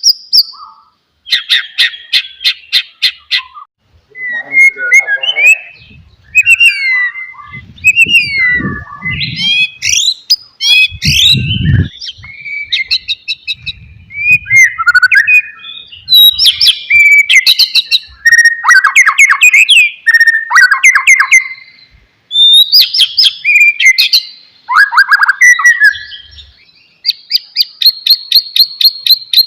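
White-rumped shama (murai batu) in full song: loud, varied whistled phrases that slide up and down, broken near the start and the end by rattling trains of quick repeated notes, about four a second.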